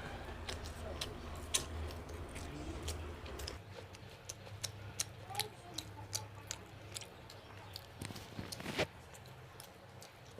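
Eating sounds: scattered sharp clicks and smacks of chewing, with a low hum that stops about three and a half seconds in.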